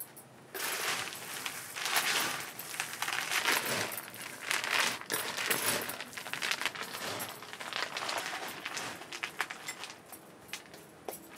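Dense crackling and crinkling, many small sharp cracks close together, starting about half a second in and thinning out near the end.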